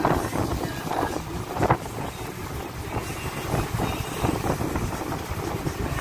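A fishing boat's engine running, with wind buffeting the microphone and choppy water around the hull; a few brief louder gusts or splashes come in the first two seconds.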